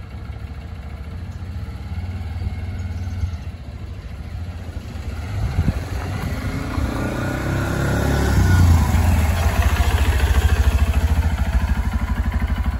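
WK Colt mini-bike's small engine running, then revving up with a rising pitch about six seconds in as the bike pulls away. It then runs louder and closer with an even, rapid beat.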